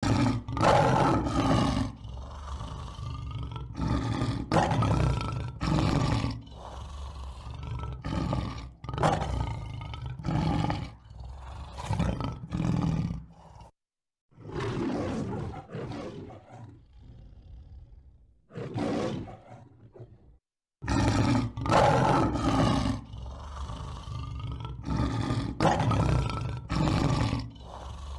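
Lion roaring: a run of loud, deep roars about a second apart. Midway the roaring drops for several seconds to quieter, shorter calls with brief silent gaps, then the loud roars start again.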